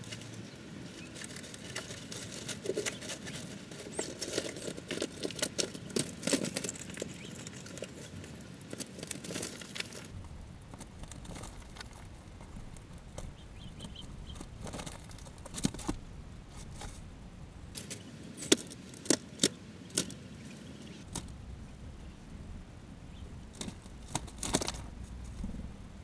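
A chipmunk rummaging among peanuts in the shell: scattered clicks, crackles and rustles, thick for the first several seconds, then sparser with a few louder sharp clicks.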